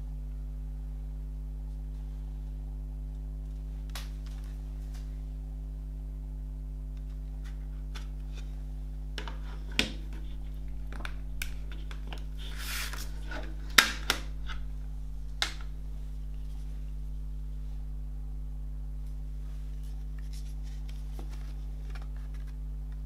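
A plastic CD jewel case being handled and opened, with the disc pressed at its centre hub. About halfway through come a cluster of sharp plastic clicks and snaps with a brief scrape among them, the loudest snap coming a little past the middle. Soft paper handling of the lyric booklet follows near the end, over a steady low hum.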